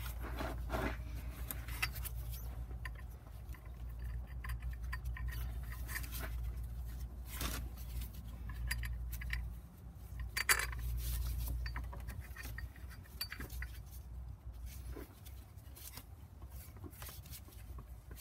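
Scattered light metallic clinks and knocks as bolts and the alternator and A/C compressor bracket are handled and fitted by hand. The loudest knock comes about ten and a half seconds in. A steady low hum runs underneath.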